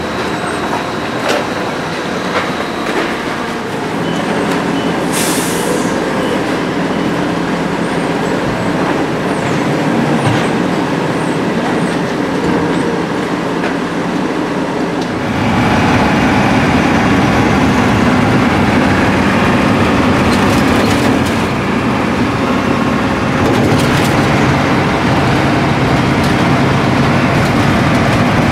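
1987 Ford C-Series garbage truck's engine running steadily, with a brief hiss about five seconds in. From about fifteen seconds in, a louder, fuller engine and road drone heard inside the cab as the truck drives.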